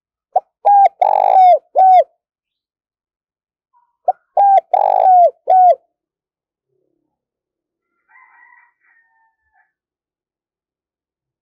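Spotted dove cooing close to the microphone: two song phrases about four seconds apart, each a short lead note, a coo, a longer middle coo and a final coo. A faint distant call follows about eight seconds in.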